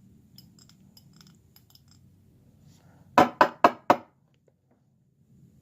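Faint scraping clicks from a tool working inside a herb grinder, then five quick, sharp clinking taps past halfway as the grinder piece is knocked to free the stuck keef.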